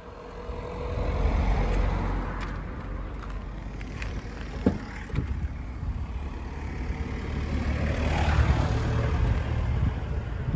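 Road vehicles driving past: noise swells about a second in and again near the end, with a sharp click near the middle.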